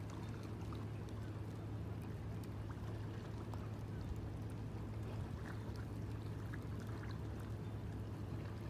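Steady rush of open river water with a constant low hum underneath, unchanging throughout, and a few faint short sounds above it.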